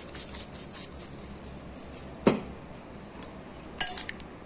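Ground black pepper being shaken from a shaker bottle over chicken in a glass bowl: a rhythmic, high-pitched rattling shake about five times a second that dies away after about a second. Then a single knock about two seconds in, and near the end a short clink of a metal spoon against the glass bowl.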